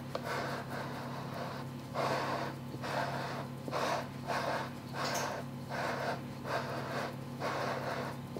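Fingers pressing and smoothing pastry dough up the side of a metal springform pan, making short rubbing strokes about twice a second over a steady low hum.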